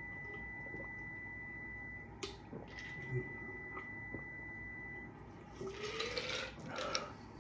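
A man gulping a drink from a glass jar, with soft swallowing clicks. From about five and a half seconds in, ice slides and rattles in the tipped-up jar as it empties. A sharp knock comes at the very end, likely the jar being set down.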